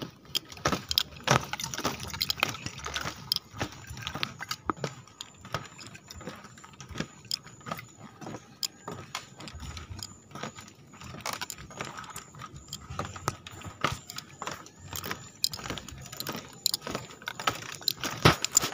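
Footsteps on a boardwalk of loose split-bamboo slats, the slats clicking and clattering underfoot in an irregular run of sharp ticks.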